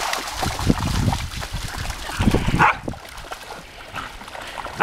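Groenendael Belgian shepherd dogs running and splashing through shallow lake water, with one short bark about two and a half seconds in.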